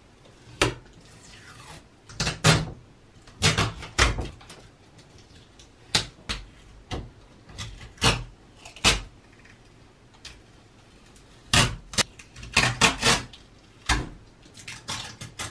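Stickers being picked and peeled off a closet door by hand: irregular short scratches, rips and taps of fingernails and sticker backing against the door.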